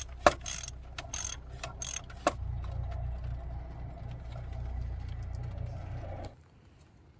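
Socket ratchet clicking in short strokes as it works on the oil filter cover of a Holden VF Commodore V6, for about two seconds. A steady low rumble follows and cuts off suddenly about six seconds in.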